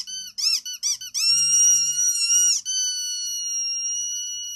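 High-pitched squeaking noise: about four quick rising-and-falling squeaks, then a long held squeak that breaks briefly and sinks slowly in pitch.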